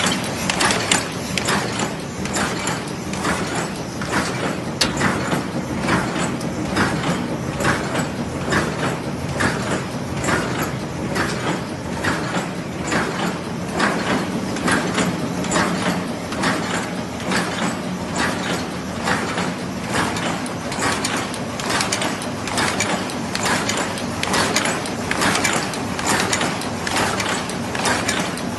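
Paper cup making machine running, its forming turret and feed mechanism clacking in a steady, even rhythm.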